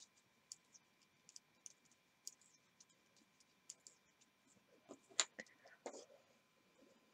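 Faint, irregular clicks of metal circular knitting needles as stitches are worked, with a louder clatter about five seconds in as the work is handled.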